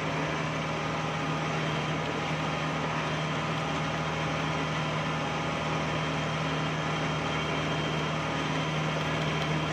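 Rice combine harvester's engine running steadily as the machine drives along, heard from the operator's seat: a constant low drone with an even mechanical hum above it.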